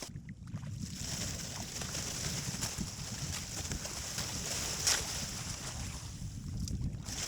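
Water splashing and dripping around a kayak as it is paddled, with small sharp ticks and one stronger splash-tick about five seconds in, over a low wind rumble on the microphone.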